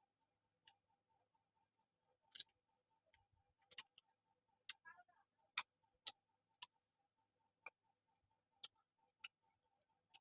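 Faint eating sounds: about ten sharp clicks and taps at irregular intervals, the loudest around the middle, over a near-silent background.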